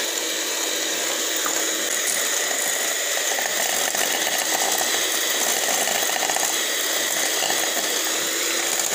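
Electric hand mixer running steadily with a constant hum, its beaters creaming butter and sugar in a stainless steel pot.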